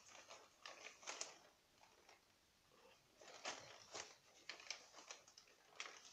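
Faint, intermittent crinkling and crackling of a plastic potting-soil bag being handled, with soil rustling, in a string of short scratchy bursts.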